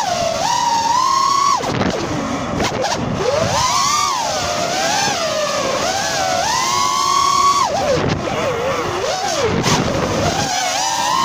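Five-inch FPV quadcopter's brushless motors (Xing-E Pro 1800KV on 6S, Ethix S3 props) whining in flight, recorded by a phone strapped to the frame. The pitch climbs and drops again and again with the throttle, sinking low twice, about two seconds in and near the end, with a rush of prop wash.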